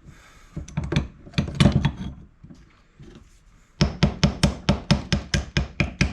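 Hammer tapping on a GM Saginaw power steering pump: a few scattered knocks in the first two seconds, then from about four seconds in a quick, even run of light taps, about five a second, to work a stuck part loose.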